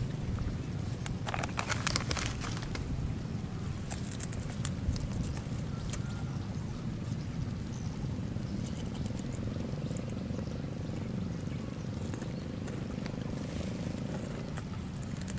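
Steady low outdoor background rumble, with a few sharp clicks in the first five seconds and a faint steady hum from about six seconds in until near the end.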